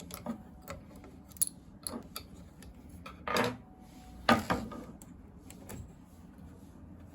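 Hands fitting a small locking clip onto a part of an SP-1130 document scanner: scattered light clicks and taps of plastic and metal parts. Two louder knocks come about three and four seconds in.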